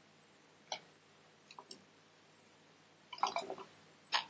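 Light clicks and taps of plastic kitchen containers being handled on a countertop: a single click about a second in, a cluster of clicks near three seconds, and a sharp click near the end.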